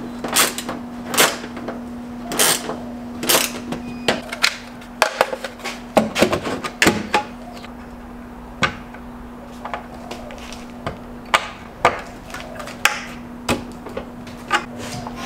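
Irregular sharp clicks and knocks of hand work on a plastic vehicle snorkel as its air-ram head is fitted and tightened, over a steady low hum.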